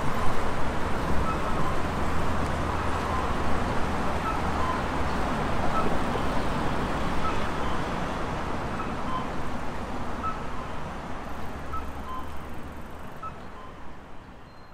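Steady city road traffic at a street intersection, with short high chirps recurring about once a second; the sound fades out near the end.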